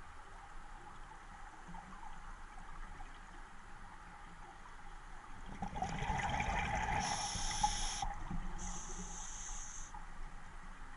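Scuba diver breathing through a regulator underwater. About halfway through comes a couple of seconds of bubbling, gurgling exhalation, then a short high hiss of an inhalation from the demand valve.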